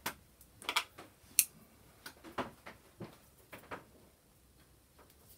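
Light, irregular clicks and taps of a paintbrush against a ceramic palette while mixing paint, about ten in a few seconds, the sharpest about a second and a half in.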